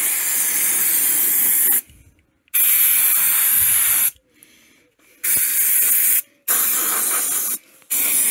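Aerosol can of engine degreaser spraying in repeated bursts of one to two seconds with short pauses between, about five in all, a loud steady hiss each time.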